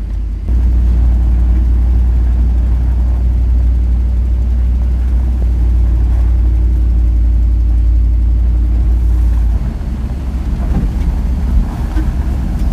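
Jeep Wrangler YJ driving along a snowy trail, its engine and drivetrain rumbling steadily as heard from inside the cab. The heavy low rumble eases and turns more uneven near the end.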